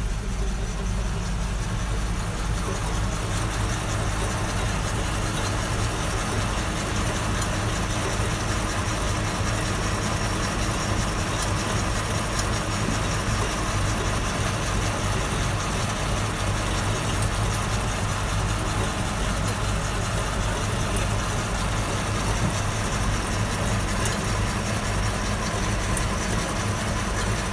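Farm tractor engine running steadily at an even speed, powering a mounted trench-digging machine for harvesting Chinese yams.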